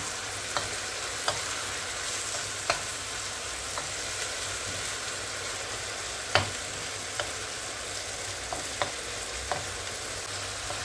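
Diced chicken and garlic sizzling in oil and the chicken's own released juices in a wide non-stick pan, stirred with a wooden spoon that knocks against the pan at irregular intervals, the loudest knock about six seconds in.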